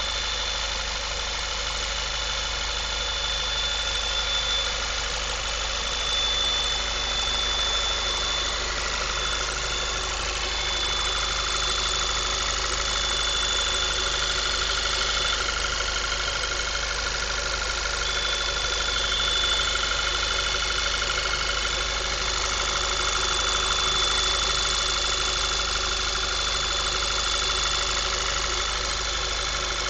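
Volkswagen 2.0 TSI turbocharged four-cylinder engine idling steadily with a thin high-pitched whine over it. The whine drops out for a moment twice. The owner takes it for a failing water pump.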